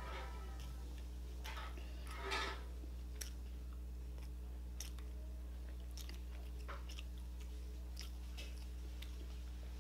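Close-miked chewing and mouth sounds from someone eating: scattered soft clicks and smacks, with a louder crunchy burst about two seconds in. A steady low hum runs underneath.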